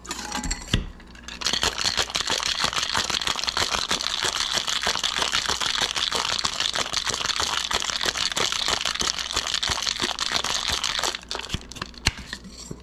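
Stainless steel cocktail shaker tin closed over a mixing glass, shaken hard with ice and the rum punch inside: a fast, steady rattle of ice against the steel for about ten seconds, starting after a second or so of pouring and fitting the tins, with a few clanks near the end as the shaker is opened.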